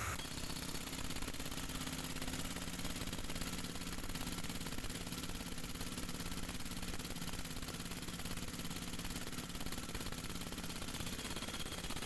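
Hand-held, hose-fed pneumatic hammer (air breaker) chiselling into concrete, running steadily with fast, even blows.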